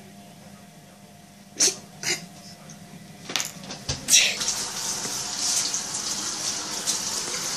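A kitchen tap running into a metal sink, the water starting about four seconds in as a boy drinks from it. Before it come a few short sharp knocks and scuffles.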